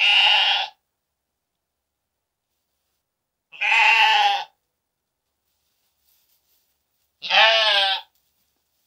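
Sheep bleating: three separate bleats, each under a second long, spaced about three and a half seconds apart, the last one quavering.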